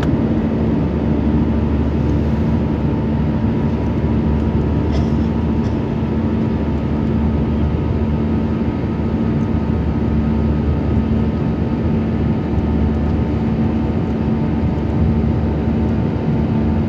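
Airliner cabin noise in flight: a steady engine and airflow drone with an even low hum and a fainter higher tone.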